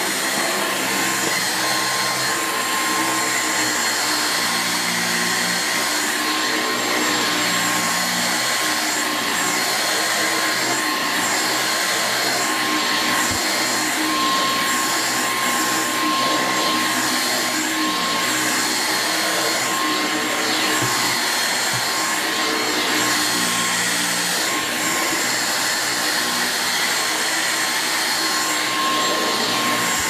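Dyson V6 Absolute cordless stick vacuum running continuously with its main motorised powerhead, pushed over a hard floor and onto kitchen carpet mats. The rush of airflow carries a steady high motor whine.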